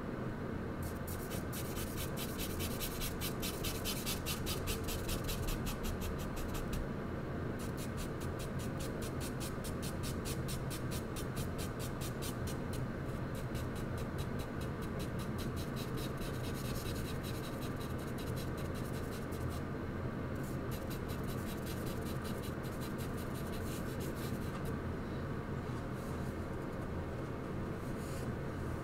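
Charcoal scratching across paper in quick back-and-forth shading strokes, in runs of several seconds with short pauses, over a steady low hum.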